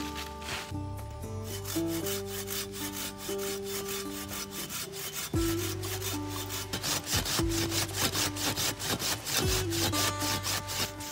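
Hand pruning saw cutting through a green mango branch, its teeth rasping through the wood in quick, even back-and-forth strokes.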